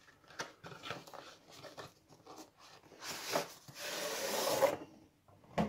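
Cardboard model-train box being handled: light scrapes and taps, then about a second and a half of rubbing as the cardboard window lid is slid off the inner tray, and a short knock near the end.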